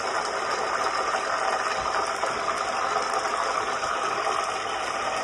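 A pot cooking hard on the stove: a steady bubbling, sizzling noise.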